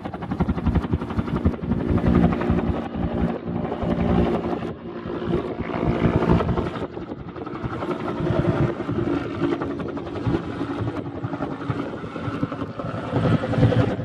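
Bell UH-1H Huey helicopter running: its two-bladed main rotor beats rapidly over the steady tone of its Lycoming T53 turboshaft engine, swelling and easing in loudness.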